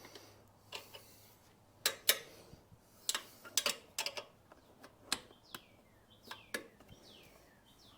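Hand tools clicking and clinking against metal parts of a motorcycle during a repair: about a dozen sharp, irregular taps.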